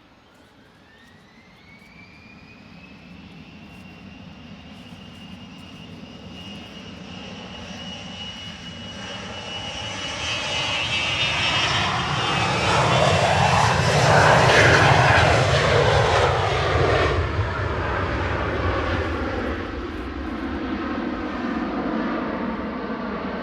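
Bombardier Global 6500 business jet's twin Rolls-Royce Pearl 15 turbofans spooling up to takeoff power, a whine rising in pitch over the first few seconds. The jet noise then builds steadily as it accelerates down the runway and passes, loudest a little past halfway, then fades as it climbs away.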